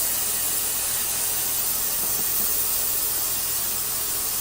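Ultrasonic parts cleaner running with a steady high hiss as it cleans small carburetor parts in its basket.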